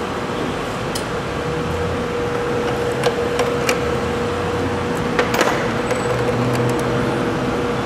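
A steady mechanical hum with a constant tone, broken by a few sharp clicks of hand tools on metal, the loudest about five seconds in.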